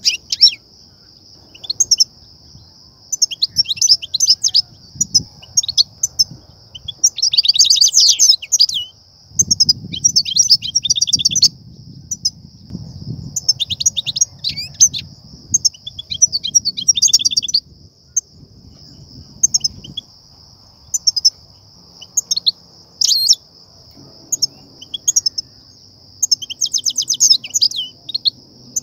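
European goldfinch twittering song: bouts of rapid, tinkling chirps and trills, one to two seconds each with short pauses between, over a steady high hiss.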